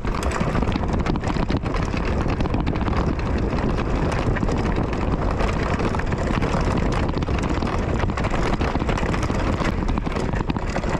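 Mountain bike rolling over a rough trail: wind buffeting the microphone over a continuous rattle of the bike, with many small knocks throughout.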